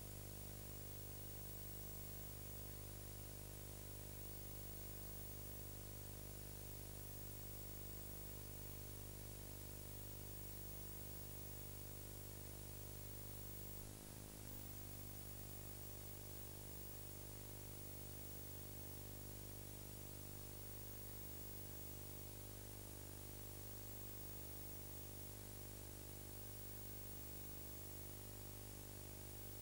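Steady electrical mains hum with buzzing overtones and constant hiss, with one brief warble about halfway through. No other sound is heard.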